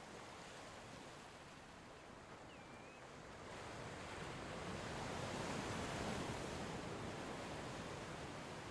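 Soft rushing of surf, a wash of noise that swells about three and a half seconds in and slowly eases off.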